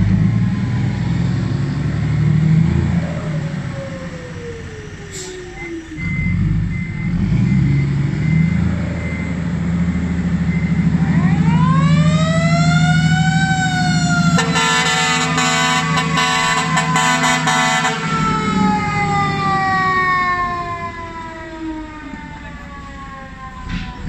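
Diesel dump truck engine running as the truck-and-trailer rig pulls forward. About eleven seconds in, a siren winds up and back down. A loud air-horn blast from the truck's cluster of horn trumpets follows for about three and a half seconds, then the siren winds slowly down.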